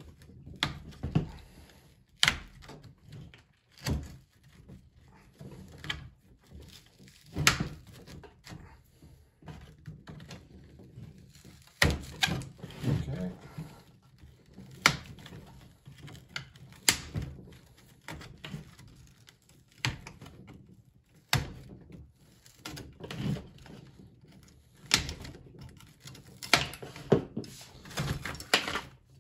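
Irregular sharp knocks and clicks, one every second or two, from a rusty steel motorcycle saddle frame and its springs being handled, pried at and knocked against a table as the old leather cover is worked off.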